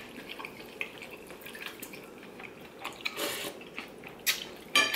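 Ramen broth dripping and trickling back into a large bowl from noodles lifted on wooden chopsticks, with small clicks, and a few short puffs of breath blowing on the noodles to cool them, the strongest about three seconds in.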